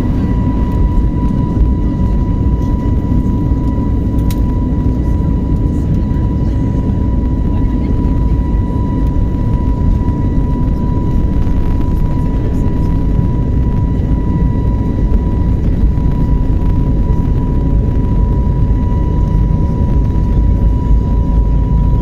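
Airbus A321 jet engines during takeoff, heard from inside the cabin: a loud, steady low rumble with a thin steady whine above it.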